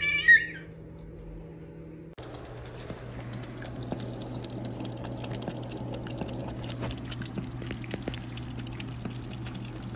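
A brief high-pitched cat cry in the first half second. From about two seconds in, a tap runs in a thin stream into a white ceramic sink, splashing onto the chrome drain with small drip clicks.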